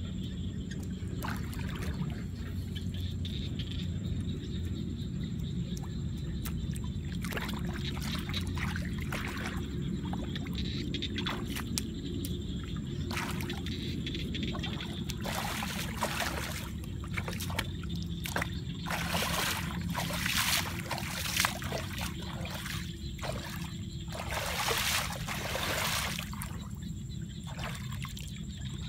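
Shallow muddy water splashing and sloshing as hands scoop and stir it and feet wade through it, in irregular bursts that are loudest about two-thirds of the way through and again near 25 seconds. Beneath it runs a steady low background noise.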